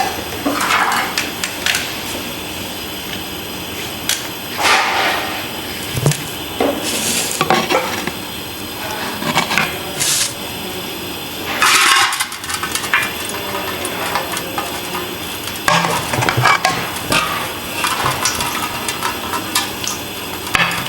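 Cooking pots and metal utensils knocking, clinking and scraping at irregular moments while a biryani pot is being readied for layering.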